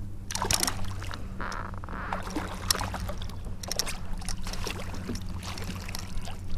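A hooked speckled trout thrashing and splashing at the surface beside a kayak as it is brought to a landing net, in a string of short, sharp splashes over a steady low hum.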